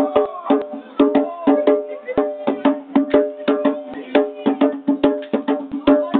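A djembe played with bare hands in a fast, steady rhythm of sharp strikes, several a second, each ringing briefly.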